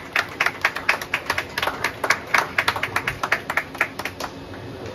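Light audience applause: a small number of people clapping, several claps a second, dying away about four seconds in.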